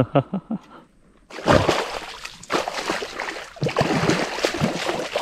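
Splashing in shallow water as a hooked bullseye snakehead thrashes while being grabbed by hand. It starts about a second in and goes on as a fast, irregular run of splashes.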